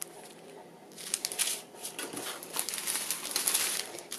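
Small clear plastic bags of square diamond-painting drills crinkling as they are picked up and handled. It is quiet for about the first second, then comes a run of irregular crinkles.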